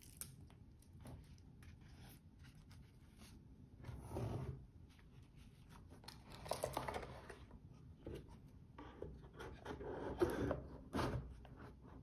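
Faint handling sounds of a wristwatch and its cardboard presentation box: small clicks and taps, with three louder rustling, scraping bursts about four, six and a half, and ten seconds in as the watch is set back on its pillow and the box is closed.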